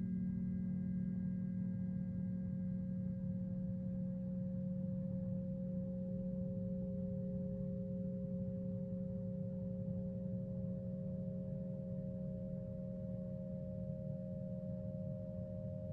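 Sustained acoustic feedback tones: several pure, steady pitches held together over a low drone, with a new higher tone joining about six seconds in and another about ten seconds in.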